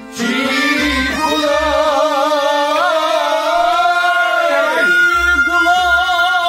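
A man sings a long, ornamented Kashmiri Sufi kalam phrase with a wavering, melismatic line, then starts a new phrase about five seconds in. He is accompanied by soft low strokes on a hand-struck clay pot drum (nout) and a steady high drone tone.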